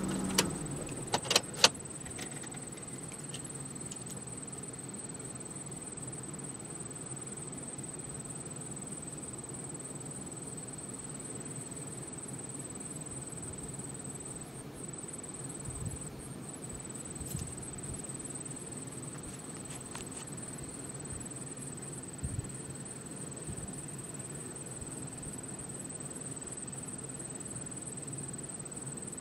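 Steady outdoor ambience: a continuous high-pitched whine over an even low rumble, with a few sharp clicks in the first two seconds.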